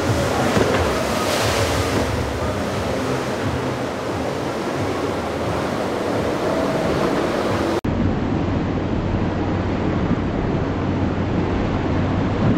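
Breaking surf and churning inlet waves with wind buffeting the microphone, and a boat's outboard engine running underneath. A brief dropout about two-thirds of the way through, where the sound changes.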